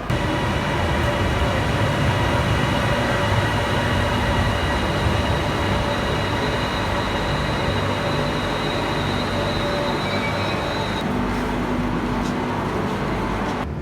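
Urban rail transit train running at speed: a steady rumble with several high steady whining tones, the highest of which stops about eleven seconds in.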